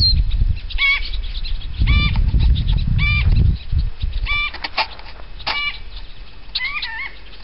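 A bird calling over and over, one short arched note roughly once a second, sometimes two in quick succession. A low rumble sits underneath in the first half.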